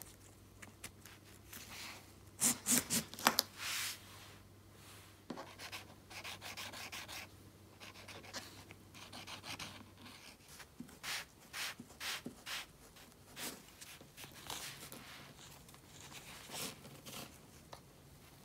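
Leather wallet parts handled and rubbed by hand: soft rubbing and scratching with scattered light clicks. A quick run of sharper clicks comes about two and a half seconds in.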